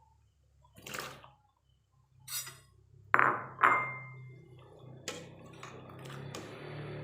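Kitchen cooking sounds: cookware and utensils clanking a few times, the two loudest clanks about three seconds in and ringing briefly. A steady watery hiss builds after them, with a few lighter clicks.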